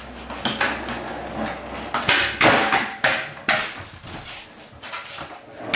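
Skateboard on a concrete garage floor: wheels rolling and the board knocking and clattering in a string of sharp hits, loudest about two to three and a half seconds in.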